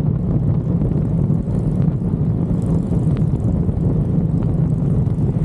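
Motorcycle running steadily at cruising speed, a constant low engine drone mixed with wind rush.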